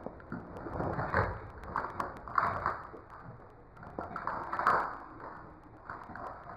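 Bearded dragon biting and chewing crickets: irregular crunches and sharp clicks, in several bursts.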